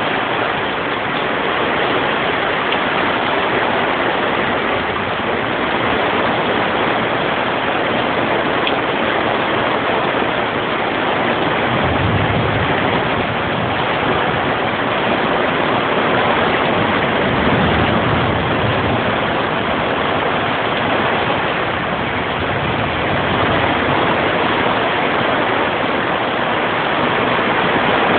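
Heavy rain falling steadily, a dense, even hiss with two low rumbles partway through.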